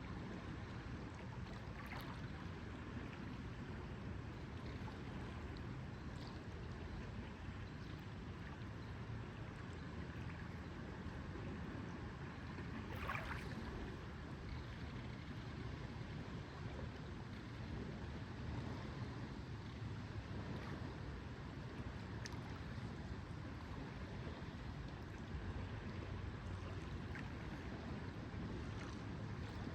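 Lakeside ambience: lake water lapping gently against the shore under a steady low rumble, with a few faint short splashes or knocks. The plainest one comes about thirteen seconds in.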